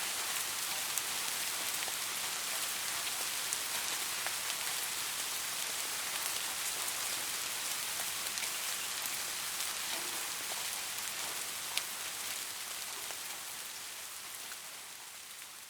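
Soft rain falling, a steady hiss with scattered close drop ticks, fading out gradually over the last few seconds.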